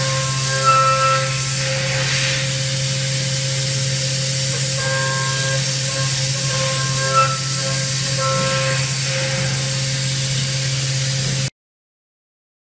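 CNC vertical machining centre milling a metal part with an end mill: a steady hiss of coolant spray over a steady spindle hum, with high cutting tones that come and go as the tool engages the part. The sound cuts off suddenly about a second before the end.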